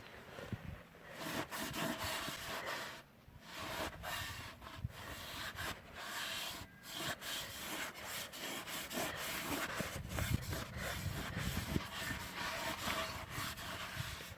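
Irregular scraping and rubbing with many short clicks and knocks.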